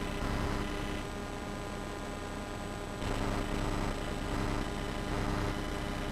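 Steady hiss with a constant electrical hum and buzz, with no distinct event standing out.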